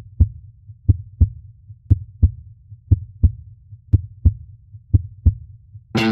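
Heartbeat sound: paired low thumps, lub-dub, repeating evenly about once a second.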